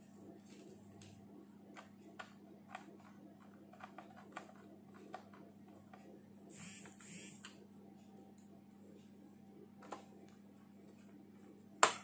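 Scattered small clicks and taps of hands, screwdriver and screws on a plastic laptop case while the back cover is put back and screwed shut, with a brief scraping rustle about seven seconds in and one sharp, loud click near the end.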